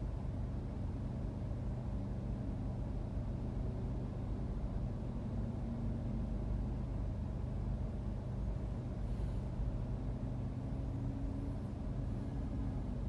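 Steady low rumble of city traffic heard from inside a car waiting at a red light. The drone of a heavy engine passes about midway as a city bus crosses, and another passes near the end as a cement mixer truck crosses.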